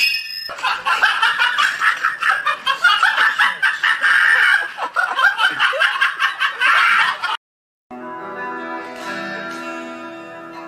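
A rapid, choppy, high-pitched sound lasts about seven seconds and cuts off suddenly. After a short silence, an electric guitar plays sustained single notes.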